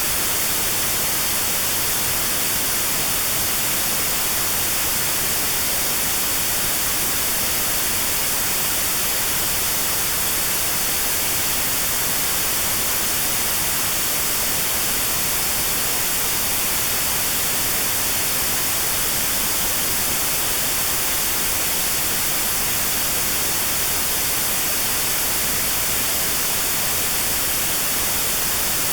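Notch-filtered white noise: a steady, even hiss with a narrow band around 4 kHz cut out, the notched sound therapy used against 4 kHz tinnitus.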